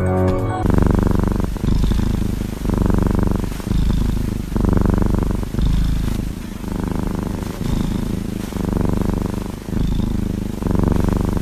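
Tabby kitten purring loudly and close up, in even swells of about one a second as it breathes in and out.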